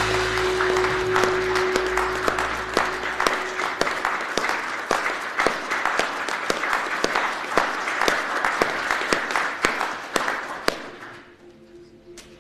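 A crowd applauding, dense clapping that thins out and stops about eleven seconds in. The tail of a music track with a low steady drone fades out in the first few seconds.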